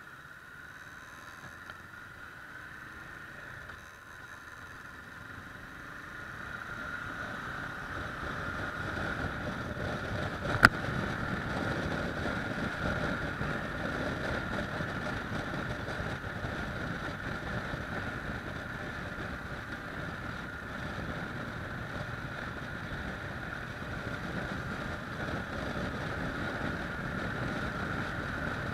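Kawasaki ER-6f parallel-twin motorcycle being ridden, heard through an action camera: steady wind noise over the microphone with the engine running beneath it, getting louder about six seconds in as the bike picks up speed. A single sharp click about ten seconds in.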